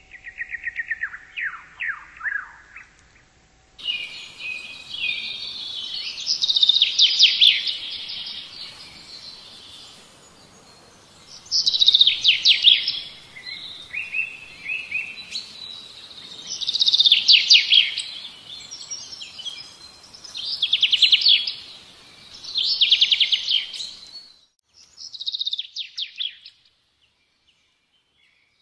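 A songbird singing: phrases of rapid, high trilled notes repeated every few seconds.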